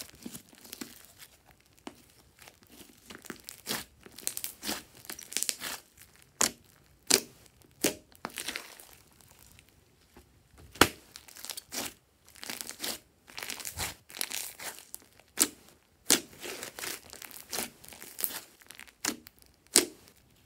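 Hands squeezing, stretching and folding a large glossy slime: irregular sticky, wet sounds with several sharp pops scattered through.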